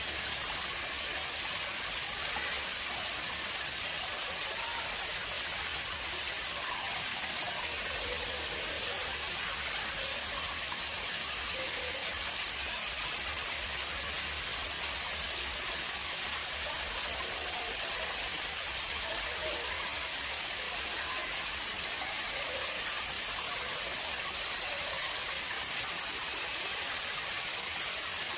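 Water flowing and splashing into an artificial pond, a steady, unbroken rush.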